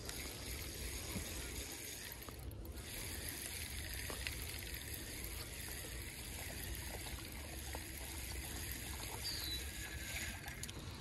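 Low rumble of wind on the microphone with faint soft ticks and a light trickle of water as a spinning reel is cranked, reeling in a hooked crappie.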